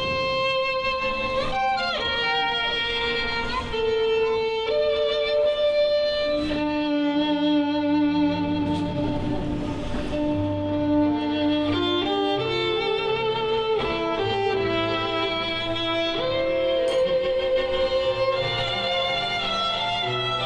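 Background music: a slow instrumental piece of long held, wavering string notes over a low bass line.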